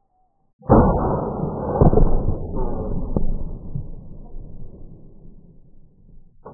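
A Tannerite-filled milk jug exploding: a sudden loud blast about half a second in, then a long rumble that fades away over about five seconds. Near the end comes a short sharp crack.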